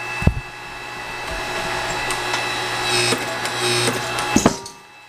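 A workshop machine running with a steady hum and hiss and a few sharp metal knocks, the last two close together, then shutting off just before the end.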